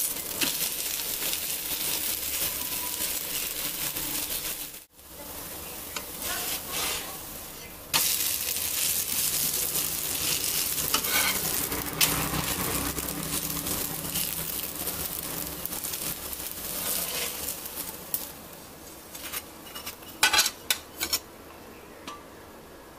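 Cucumber-and-batter pancake sizzling in oil on a hot tawa griddle, turned and scraped with a steel spatula. The sizzle breaks off briefly about five seconds in, comes back loud, then fades, with a few sharp clicks near the end.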